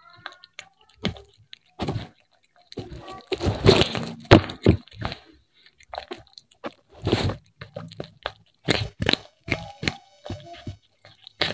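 Domestic cat chewing fried fish close to the microphone: irregular wet crunches and bites with silent gaps between them, thickest about four seconds in.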